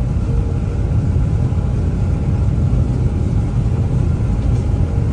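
Combine harvester running steadily, heard from inside its cab: a constant low rumble of engine and machinery with a faint steady hum.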